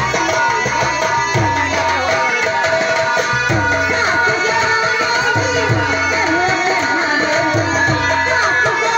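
Bhojpuri folk stage music: hand drums beat a steady repeating rhythm of deep strokes under sustained melody notes and a wavering melodic line.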